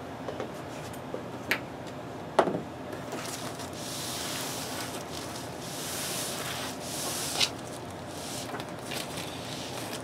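A Dell OptiPlex 9020 All-in-One's casing being turned on a protective sheet over a table. Knocks come about one and a half and two and a half seconds in, the second the loudest. A few seconds of rubbing and sliding follow, then another knock about seven seconds in.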